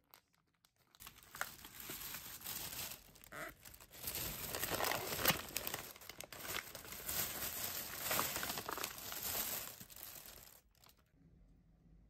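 Plastic packaging and a thin plastic bag crinkling and rustling unevenly as they are handled, starting about a second in and stopping about ten seconds in.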